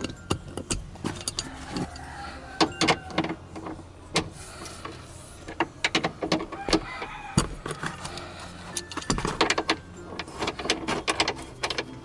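Socket ratchet clicking in bursts as a bolt is turned, with clinks of the socket and tools against metal.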